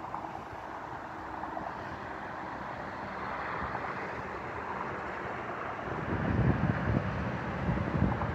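Wind blowing across a phone's microphone over a steady rushing outdoor background, breaking into low, uneven rumbling gusts about six seconds in.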